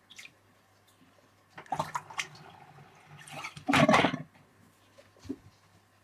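Water splashing out of a plastic bowl into a sink basin, twice, the second pour louder, about four seconds in.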